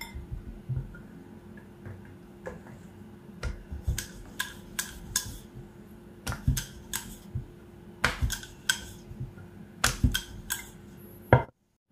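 Wooden rolling pin knocking and rolling on a granite board as dough is rolled out thin, with the dough slapped and turned between strokes: irregular clicks and knocks over a faint steady hum.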